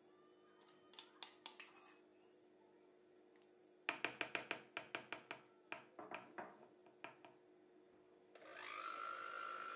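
A metal spoon clicking repeatedly against a plastic mixing bowl, a quick run of light taps as thick sweetened condensed milk is knocked off it. About eight seconds in, an electric hand mixer starts and runs with a steady whine.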